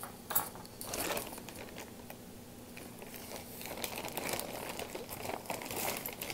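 Clear plastic bag crinkling and rustling as a hand rummages through the costume jewelry inside it. The crackling grows busier about two-thirds of the way through.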